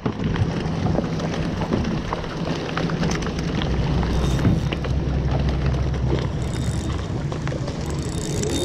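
Wind buffeting the camera microphone over open water in a steady rush, with scattered sharp ticks throughout.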